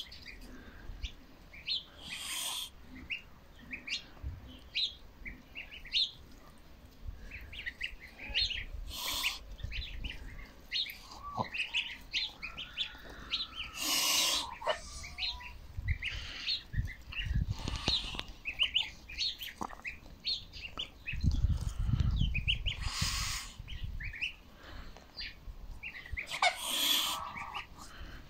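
Goslings peeping in a steady stream of short, high cheeps as they feed, with a few brief hissing bursts and a low rumble about two-thirds of the way through.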